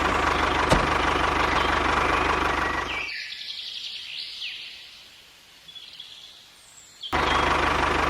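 A small engine running steadily with a fast, even ticking, cutting off abruptly about three seconds in. A few faint bird chirps follow, then the engine sound comes back just as suddenly near the end.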